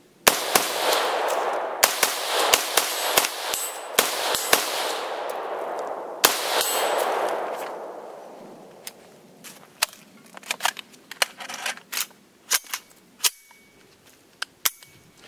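AR-15 rifle in 5.56 with a muzzle brake and a dual recoil-spring buffer system, fired about nine times at an uneven pace in the first six or so seconds, each report echoing, with the echoes dying away over the next couple of seconds. After that, lighter scattered metallic clicks and knocks as the rifle is handled.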